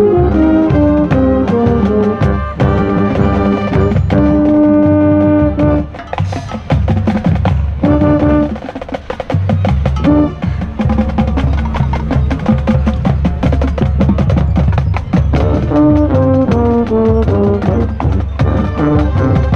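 Marching band playing: brass plays a line of stepping, falling notes, then the drums carry a long middle stretch with rapid strokes, and the brass comes back in near the end. The horn right at the microphone is loud and close.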